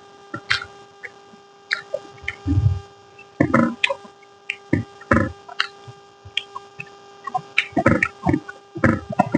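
Close-up eating sounds: irregular chewing, smacking and mouth clicks while a meal of rice and curry is eaten. A steady electrical hum runs behind them.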